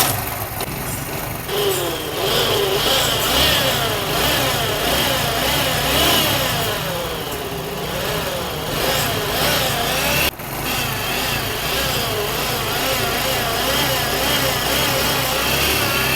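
70 cc motorcycle engine running with a clutch noise, a whirr that rises and falls in pitch over the engine's steady rumble, with a brief break about ten seconds in. It is the noise that comes when the clutch is pressed and stops when it is released, which points to a fault in the clutch side cover, typically a worn clutch bearing.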